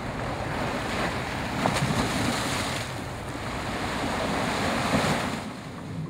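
Ocean surf washing over the rocks and steps at the water's edge: a steady wash of waves that swells and eases.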